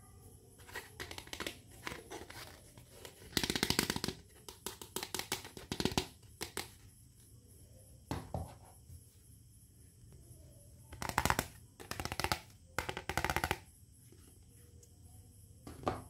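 Small plastic toy kitchen pieces being handled and set down: bursts of clicking, rattling and light knocks, with quiet gaps between them.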